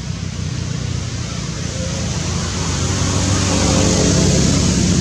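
A motor vehicle engine running close by, getting louder, with a low rumble and a faint engine note from about two seconds in.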